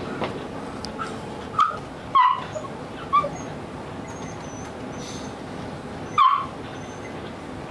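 Dogs barking in shelter kennels: four short, sharp barks at about one and a half, two, three and six seconds in, over a steady background hum.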